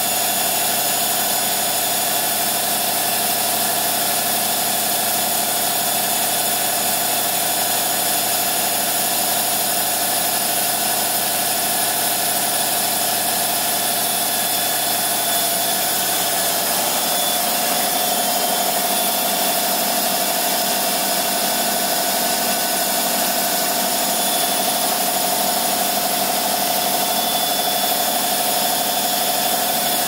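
Samsung front-loading washing machine running a 1000 RPM rinse cycle without anti-vibration pads under it: a steady mechanical hum with a whine. A little past halfway the whine steps slightly higher and the low hum changes, a shift in drum speed.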